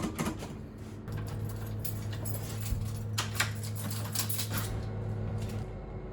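A steady low hum from the tram's on-board equipment starts about a second in and stops near the end, with scattered clicks and light clatter around it.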